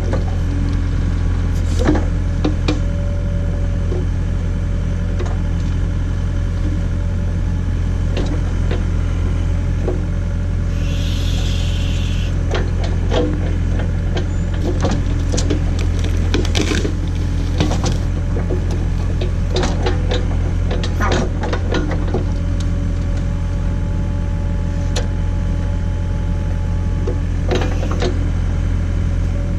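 John Deere 317 skid steer's diesel engine running steadily under load as the Davis D100 backhoe attachment digs, with repeated sharp metallic clanks and knocks from the bucket and linkage, thickest in the middle stretch.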